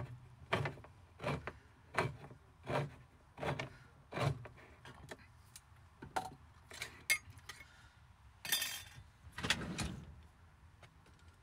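Hand-held tin opener being turned around a metal tin, clicking at an even pace of about three clicks every two seconds, then stopping about four seconds in. After that come a few scattered light knocks and a brief rustling scrape.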